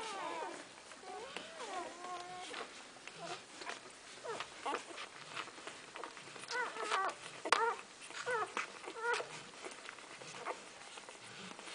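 Newborn Golden Retriever puppies suckling at their mother, with many short wet clicks and smacks as they nurse. High, wavering squeaks and whimpers from the puppies come in a cluster near the start and again about seven to nine seconds in.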